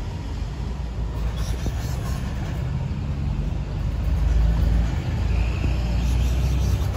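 Low rumble of street traffic, with a motor vehicle going by that is loudest about four seconds in.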